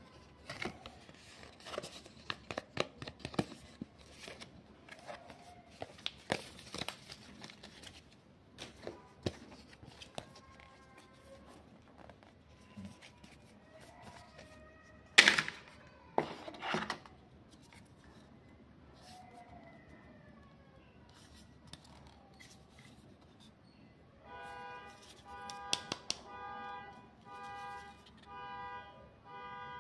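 Hands handling smartphone packaging: paper inserts and card rustling, and a plastic phone case and charger clicking and tapping, with one loud sharp rustle about halfway. Near the end, a pitched tone pulses on and off in the background.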